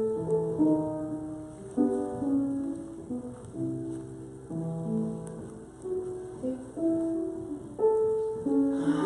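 Slow piano music, with notes and chords struck every second or so and left to ring.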